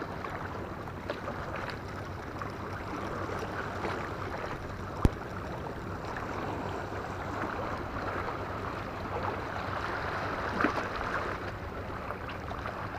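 Steady outdoor noise of sea water lapping, with one sharp click about five seconds in.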